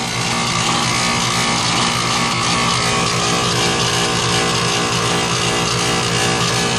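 Air-conditioning compressor running with a steady buzzing hum and a harsh rushing noise over it, which the uploader takes for the sound of a bad compressor.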